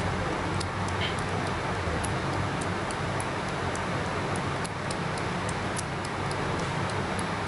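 Sugar glider crunching fried pork rind, with small irregular crackling clicks two or three times a second over a steady low hum.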